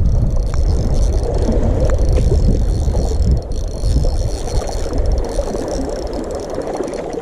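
Sea water washing and sloshing against shoreline rocks, a steady noisy wash with a strong low rumble, and a few faint clicks about two seconds in.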